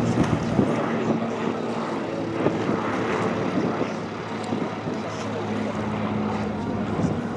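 A boat's engine running steadily as a low drone.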